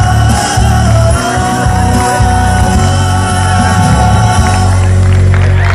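Live Argentine folk song with singing over a loud PA, ending on a held chord. Applause and cheering start near the end.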